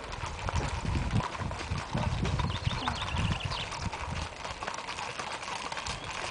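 Horses' hooves clip-clopping on an asphalt lane as a group of ridden horses walks past, the many overlapping, irregular hoofbeats of several horses at once.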